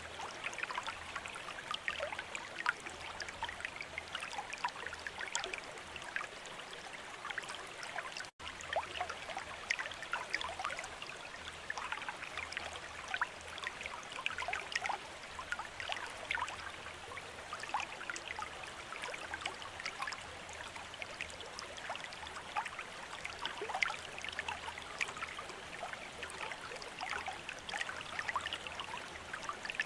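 Water trickling from a bamboo fountain spout and splashing into a basin, steady and continuous with many small droplet splashes. It cuts out for an instant about eight seconds in.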